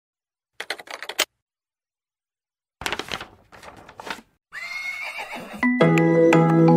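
A quick run of keyboard clicks, then a horse whinnying in two parts, a short hissing swell, and bright mallet-percussion music starting near the end.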